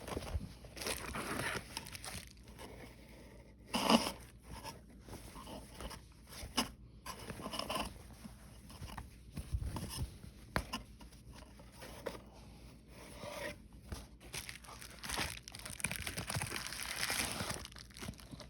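Packaging being handled and unwrapped by hand: irregular rustling, crinkling and tearing with scattered small knocks, the loudest about four seconds in.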